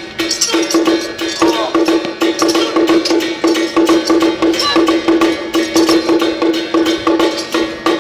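Song Jiang Zhen procession percussion: drum, gongs and cymbals beating a fast steady rhythm, about three strokes a second, with metallic ringing above the beat.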